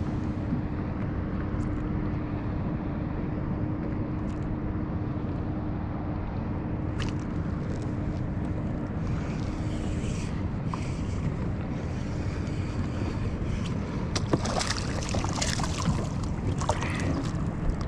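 Steady wind and water noise at a fishing kayak at sea, with a faint steady hum through the first ten seconds. Scattered sharp clicks and splashes come in the last few seconds.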